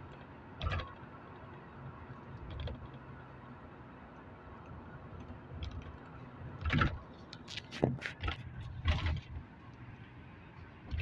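Steady low road and engine rumble from inside a moving car's cabin. Several sharp clicks and knocks cut through it: one near the start and a cluster about seven to nine seconds in.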